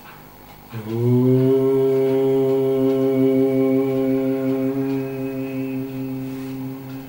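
A man's voice chanting one long, steady held note that begins about a second in.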